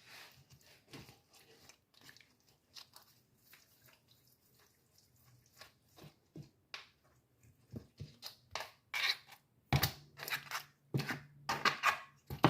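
Hands rubbing dry seasonings into raw chicken pieces on a cutting board: irregular soft squishing and crackling, growing louder and busier in the last few seconds.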